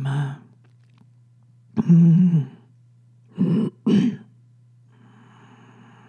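A person's wordless vocal sounds: short throaty, sighing utterances, one at the start, a longer one about two seconds in, and two short ones close together a little before four seconds. They are the non-verbal sounds of the meditation, over a steady low hum.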